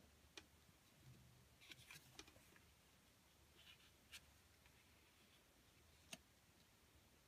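Near silence: a few faint taps and light rustles of paper cards being moved around on a cutting mat, over a low steady hum.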